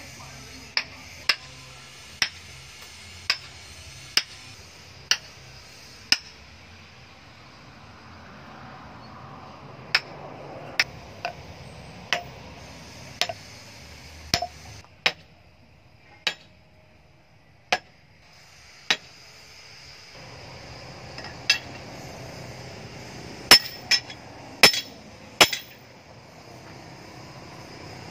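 Hammer strikes ringing on metal while a hot tang is driven into a wooden knife handle, about one a second at first, then at irregular intervals, with a few louder blows near the end.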